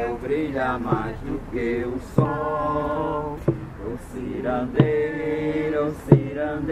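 A group of voices singing a slow chant together, holding long notes, over a hand drum struck on a steady beat about once every second and a quarter.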